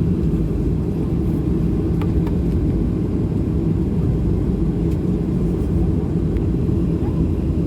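Steady low drone inside a Boeing 737-800's passenger cabin before takeoff: the airliner's engines and cabin air running at a constant level, with a few faint ticks.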